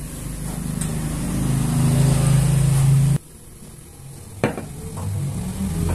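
Wooden rolling pin rolling out wheat-flour dough on a wooden board: a steady low rumble that grows louder and stops abruptly about three seconds in, followed by a single sharp knock of wood on wood.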